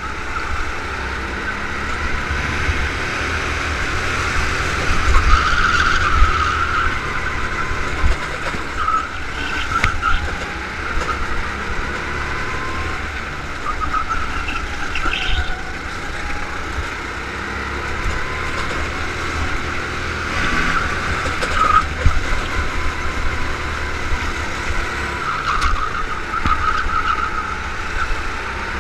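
Go-kart engine running hard on a racing lap, recorded onboard, its pitch rising and falling as the kart accelerates out of corners and slows into them, over a steady low rumble.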